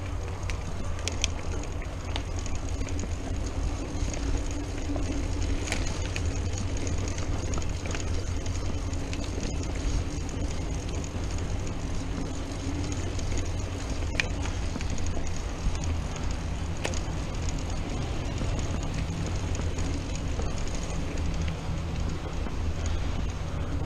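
Mountain bike rolling along a dirt singletrack, picked up by a chest-mounted camera: a steady low rumble of tyres on dirt and air rushing past, with a few short sharp rattles from the bike.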